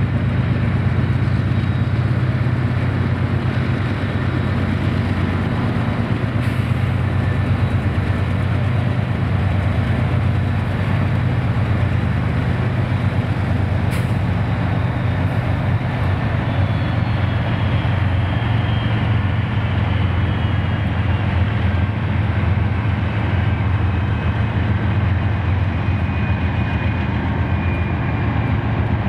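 A string of CSX diesel-electric locomotives, including EMD SD50 and GP15 units, rolls past close by with their engines running in a steady, loud, low drone.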